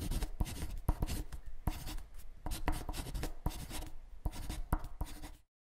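Pen scratching and tapping on paper in quick, irregular short strokes while drawing and writing; it cuts off suddenly near the end.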